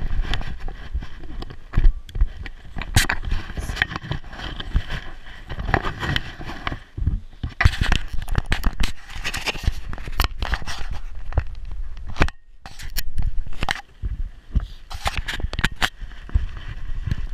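Irregular knocks, clicks and scraping from a GoPro camera strapped to a dog's back, its mount and harness jostling and rubbing as the dog moves.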